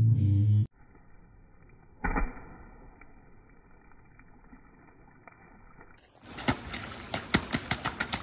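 Boots stomping and splashing in a shallow muddy rain puddle: one sharp splash about two seconds in, then a quick run of splashes near the end. It opens with a short, loud low tone that stops abruptly.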